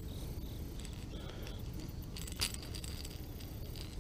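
Light metallic clinking of steel fishing pliers against a topwater popper's treble hooks while the hooks are worked out of a pickerel's mouth, with one sharper click about two and a half seconds in.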